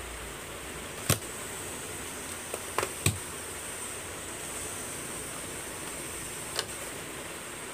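A few short sharp clicks and knocks over a steady hiss: one about a second in, two close together around three seconds, and one near the end. They come from multimeter probes and leads being handled on the bench against an air-conditioner control board.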